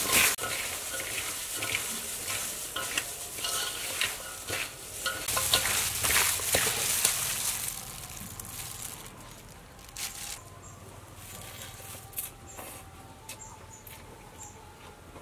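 Plastic-gloved hands tossing and squeezing shredded cucumber, carrot and shallot in a stainless steel bowl: wet rustling and crackling of the gloves and vegetables. It is busiest over the first half, then thins to scattered light rustles.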